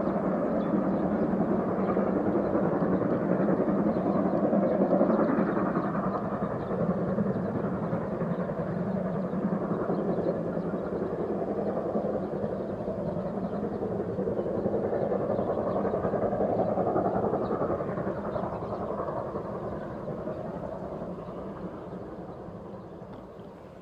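Steam locomotive 01 202, a DRG class 01 Pacific, working a passenger train at a distance. Its steady train noise swells twice and then fades away near the end.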